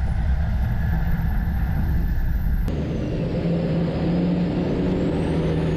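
Racing semi-trucks' diesel engines running at speed around the track. The sound changes abruptly about three seconds in.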